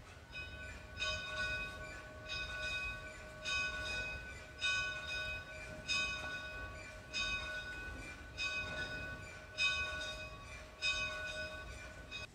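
A church bell tolling, struck about once every second and a quarter, each stroke still ringing when the next one lands.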